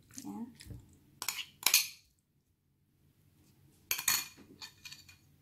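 A spoon clinking and knocking against a glass bowl as tapioca pearls are added: two sharp clinks between one and two seconds in, then a few more knocks about four seconds in.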